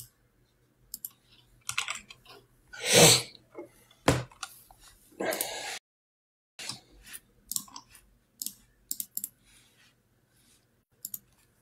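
Typing on a computer keyboard: irregular key clicks with pauses between them, and two louder short noises about three and five seconds in.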